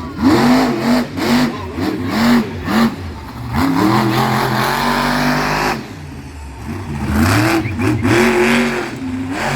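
Monster truck engine revving hard in quick repeated blips, rising and falling in pitch, with one longer held rev in the middle before it drops off and picks up with more short revs near the end.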